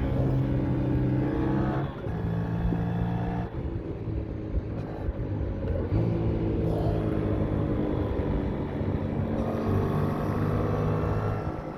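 Yamaha MT-07's 689 cc crossplane parallel-twin engine running on the road. The note dips briefly about two seconds in and again about three and a half seconds in, then picks up again around six and nine and a half seconds in.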